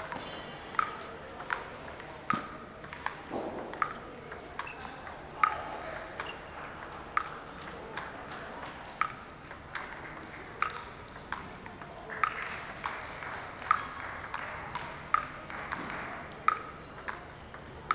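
Table tennis ball played back and forth with sandpaper-faced bats in a long rally: sharp clicks of the ball off bat and table, about one every three-quarters of a second.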